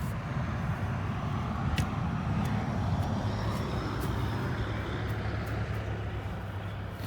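Road traffic: a steady rumble of vehicles, swelling and fading as one passes about two to four seconds in, with an occasional sharp click.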